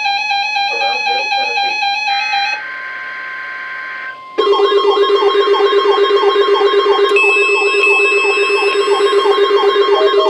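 Weather radio receivers alarming for a NOAA Weather Radio required weekly test. Steady electronic tones give way about two and a half seconds in to a quieter stretch of steady tones. From about four seconds in comes a loud warbling electronic alarm pulsing about three times a second, with a steady higher beep layered over it for a while.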